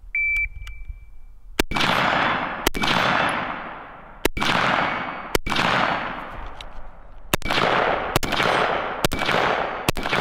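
Shot-timer beep, then a 5.56 mm AR-15 rifle firing eight aimed semi-automatic shots, roughly a second apart, beginning about a second and a half in. Each shot leaves a long fading echo.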